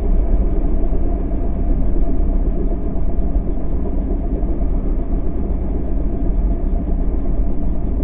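Steady, loud low rumble of the King Air F90's twin turboprop engines and airframe, heard in the cockpit.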